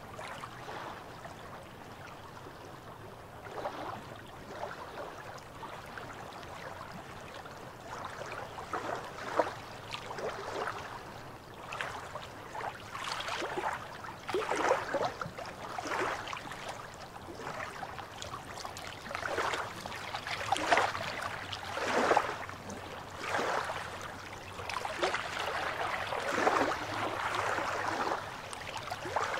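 Small waves lapping and splashing against shoreline rocks in irregular gurgling splashes, sparse at first and coming more often and louder from about twelve seconds in.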